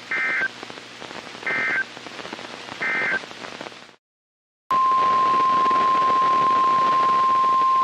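Three short bursts of Emergency Alert System SAME data, the end-of-message code, over weather-radio static. After a moment of dead silence, the NOAA Weather Radio 1050 Hz warning alarm tone starts, one loud steady pitch.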